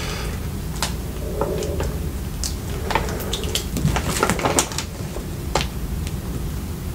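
Spoon and takeout food containers being handled while chili is spooned into a Chipotle burrito bowl: light clicks and knocks at irregular intervals, over a steady low hum.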